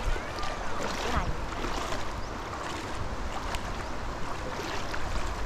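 Stream water rushing and splashing, with a few sharper splashes scattered through it.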